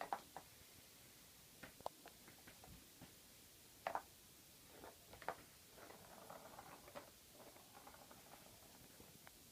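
Cat's ball-track toy: a plastic ball knocking and clicking in its plastic track as the cat bats at it. There are scattered sharp knocks, then a short run of light rattling about six seconds in as the ball rolls around the track.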